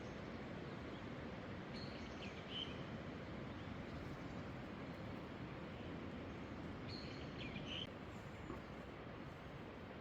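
Steady rush of falling water from the Tanashita Fudo waterfall, with a bird chirping briefly twice over it.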